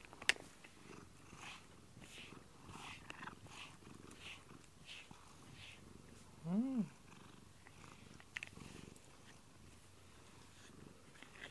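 Domestic cat purring while being stroked on a lap, with a sharp click near the start and a short meow that rises and falls in pitch just past the middle.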